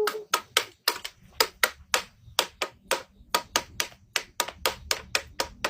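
A rapid, even series of sharp knocks, about four a second.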